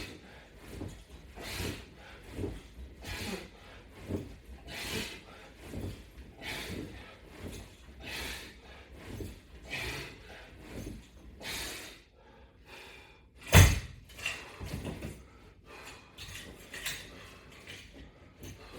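A man's forceful breathing in a steady rhythm during strap sit-ups, a breath pushed out with each repetition. The breathing pauses about twelve seconds in, and then comes a single loud thump, followed by quieter breaths.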